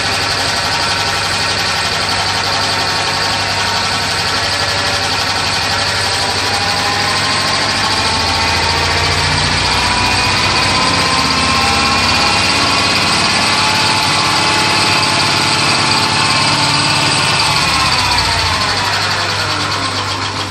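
Homemade model engine running steadily, its speed rising slightly midway, then slowing down near the end as it winds down.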